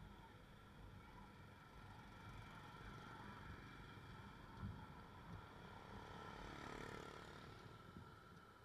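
Faint riding noise from a motorbike under way: a steady low engine and road rumble that swells a little about seven seconds in.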